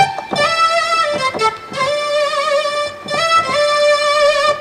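A lead line played on an Alesis V25 MIDI keyboard through a software instrument: one held note at a time with a slight vibrato, moving to a new pitch every second or so, with a few short sharp hits between the notes.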